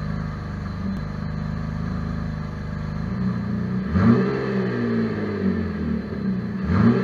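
GM LFX 3.6-litre V6, freshly built and running on a test stand, idles steadily. It is revved sharply about four seconds in and again near the end, its pitch climbing and then falling back each time.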